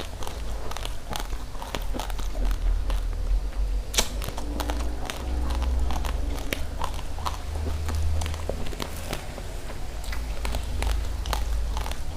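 Close-miked chewing of uncooked rice: irregular sharp crunches as the dry grains crack between the teeth, the loudest about four seconds in, over a steady low rumble.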